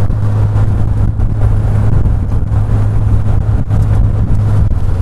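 Open-top Maruti Gypsy safari jeep driving along a paved road, heard from inside the open cab: a steady low engine drone with road noise.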